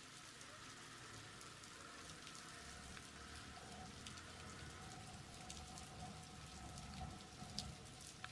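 Faint rain, with many small drop ticks scattered through a steady patter.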